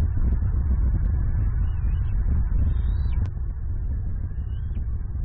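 A young bald eagle gives thin, high squealing squee calls, three short ones that rise and fall, over a loud steady low outdoor rumble on the microphone.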